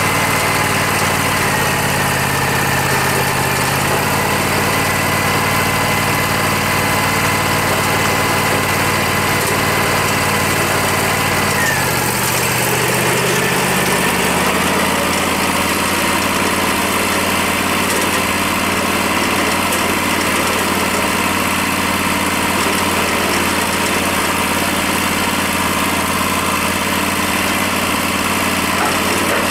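Wood-Mizer LT40 band sawmill's engine running steadily. A thin high whine over it stops about twelve seconds in, and the engine note shifts, then holds steady to the end.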